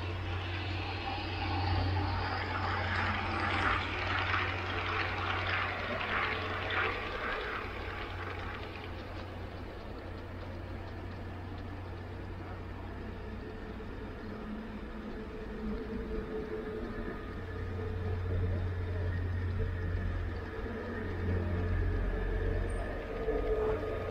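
Garden-scale model train running on outdoor track: a steady low hum, with a rattle of rapid clicks for several seconds near the start.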